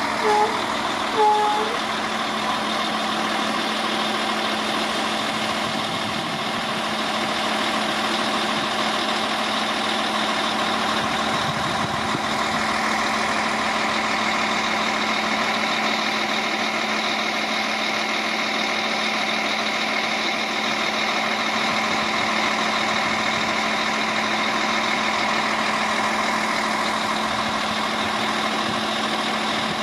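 Diesel engine of an SA134 diesel multiple unit idling steadily with a constant hum while the train stands stopped at a signal. Two short beeps sound about a second apart near the start.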